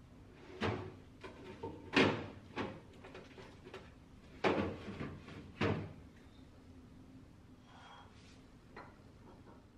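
Refrigerator's bottom freezer compartment being opened and shut, with a package being put inside: a handful of clunks and knocks over the first six seconds, loudest about two seconds in.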